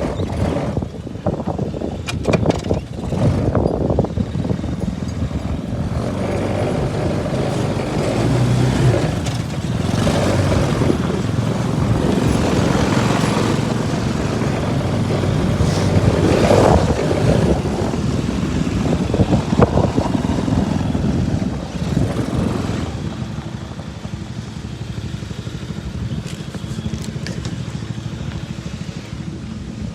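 Jeep engine running after sitting unused for a long time, its level rising and falling as if revved or driven, then settling quieter about three-quarters of the way in. The owner thinks it does not sound too healthy.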